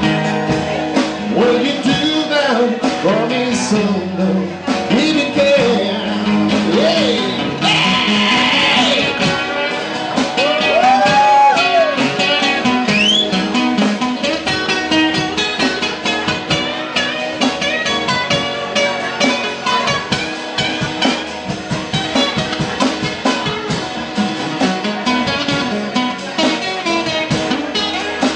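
Live rock band playing, with guitar, drums and singing.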